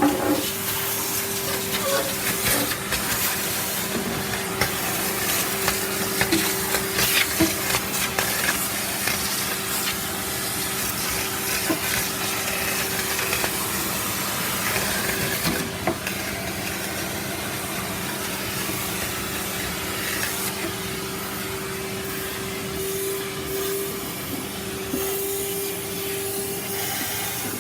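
Vacuum cleaner running with a steady motor whine and airflow hiss, its nozzle clicking and knocking as it sucks up bits from the floor through the first half, then running more steadily.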